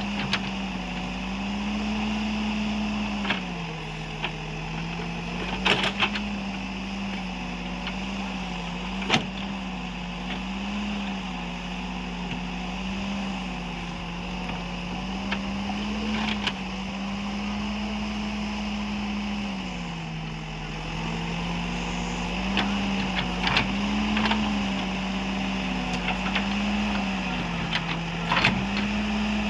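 Diesel engine of a backhoe loader running steadily while it works. Its pitch dips briefly now and then under load, and sharp knocks sound a handful of times.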